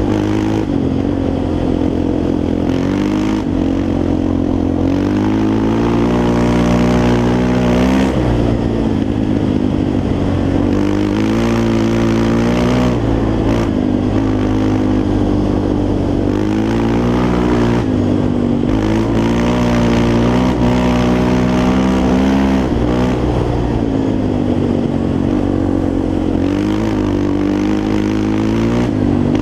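Yamaha Raptor 350 quad's single-cylinder four-stroke engine, revving up and falling back over and over as it is ridden hard.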